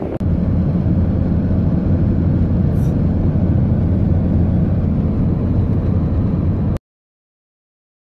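Steady low road and engine rumble inside a car cruising on a highway, cutting off suddenly near the end.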